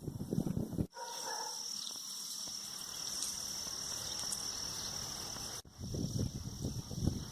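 Crickets trilling steadily at a high pitch. Gusty wind buffets the microphone for the first second and again from about five and a half seconds in, with abrupt cuts between the two.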